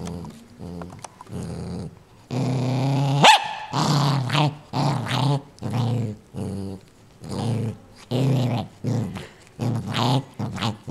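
Small dog growling with a plush toy in its mouth, guarding it from anyone near. The growls come in repeated pulses, softer at first, then louder from about two seconds in at about one a second, one longer growl ending in a quick rise in pitch.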